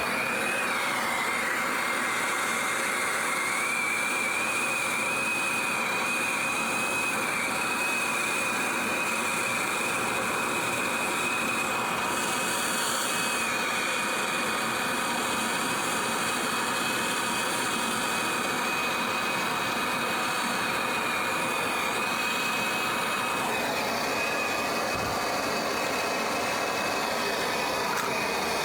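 Handheld gas soldering torch burning steadily with a continuous hiss and a thin high whistle, heating a fluxed copper pipe joint to sweat the solder.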